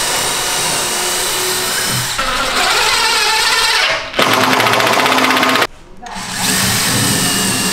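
Power drill running in long runs, pre-drilling pilot holes in a board so it won't crack. It stops briefly about four seconds in and again near six seconds, then runs again.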